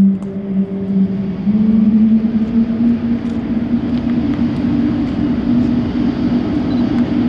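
A Boeing 777-300ER's GE90-115B turbofan spooling up during engine start. It gives a rumbling hum whose tone steps up about a second and a half in and then keeps rising slowly.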